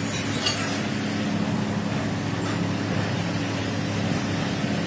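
Steady low mechanical hum of a running motor, with a couple of faint clicks as a motorcycle front fork tube is worked in its aluminium slider.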